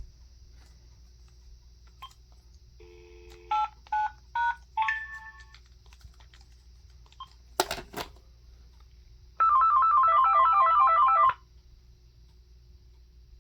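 A telephone line being called: a brief dial tone, then four touch-tone dialing beeps, a couple of clicks, and then an AT&T 5840 5.8 GHz cordless phone ringing with a fast warbling electronic melody for about two seconds before it cuts off suddenly.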